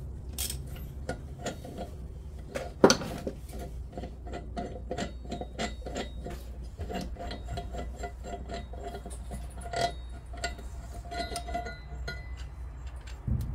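Steel engine parts clicking and tapping against each other as the gears are worked onto a VW crankshaft, with many light metallic ticks and one sharper knock about three seconds in.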